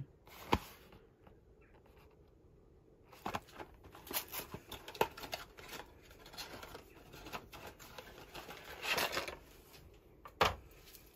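Cardboard box and wrapping of a new Stihl saw chain being opened and handled: scattered rustling and scraping, a longer ripping sound near the end, and sharp clicks about half a second in and shortly before the end.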